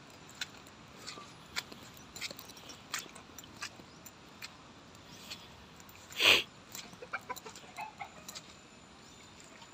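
Footsteps squelching and scuffing on a muddy, waterlogged dirt path, a soft irregular patter of short sounds, with one louder, sharper sound about six seconds in.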